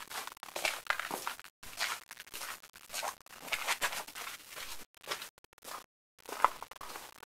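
Snow crunching in short, irregular bursts about once a second. The sound cuts out abruptly to dead silence twice, briefly about one and a half seconds in and again for a moment near six seconds.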